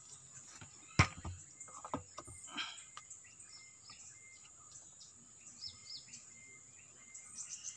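Outdoor ambience of birds chirping over a steady, high insect drone, with a single sharp knock about a second in.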